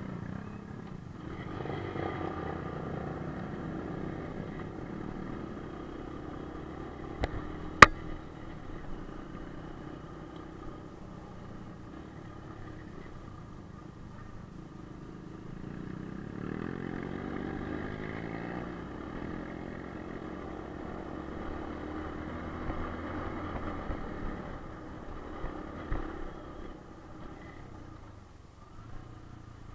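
Kawasaki KLX dirt bike's single-cylinder four-stroke engine running, its note rising and falling with the throttle and climbing as it revs about sixteen seconds in. A single sharp knock, the loudest thing here, stands out about eight seconds in.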